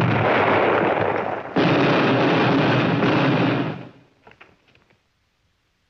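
Film sound effect of artillery shell explosions: two long blasts, the second starting about a second and a half in. They die away just before four seconds, leaving a few faint pops.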